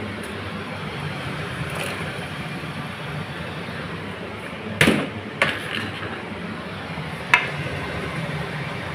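Chopped vegetables tipped from a plastic colander into a metal cooking pan: a loud knock about five seconds in, then two lighter knocks of the colander and spatula against the pan, over a steady low hum.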